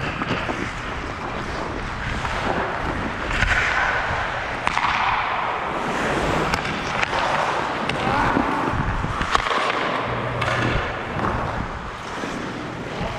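Ice hockey skate blades scraping and carving across the ice, with a few sharp clacks of sticks and puck.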